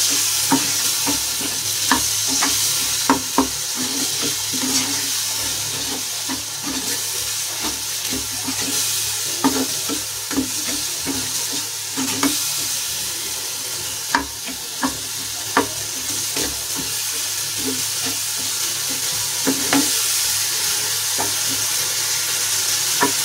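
Chopped tomatoes and green chilli sizzling in hot ghee in a small frying pan as they cook down, with a steady hiss. A wooden spatula stirs and scrapes through them, knocking against the pan at irregular moments.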